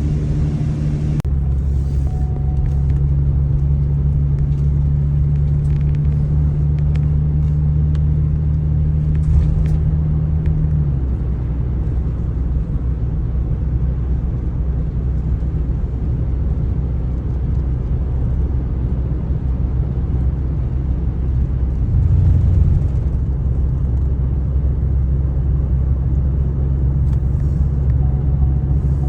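Car engine and road noise while driving: a steady low drone whose pitch shifts a few times, about a second in, again around 11 seconds, and briefly near 22 seconds.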